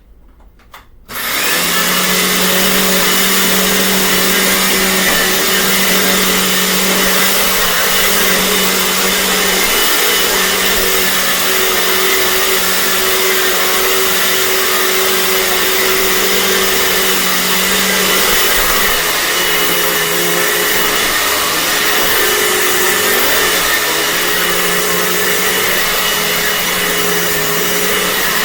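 A Dirt Devil Classic vacuum cleaner switched on about a second in, then running steadily at full power with a steady motor hum.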